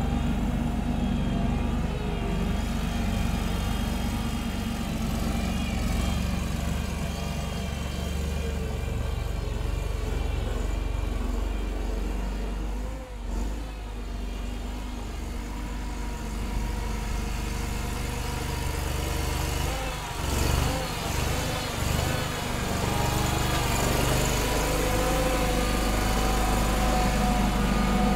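Small homemade wheel loader's engine running, its pitch wavering up and down as the machine drives and works the snow; the sound dips briefly about halfway through.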